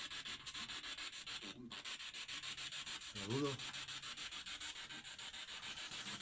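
Choppy static hiss pulsing about seven times a second, with one brief faint voice-like sound about three seconds in.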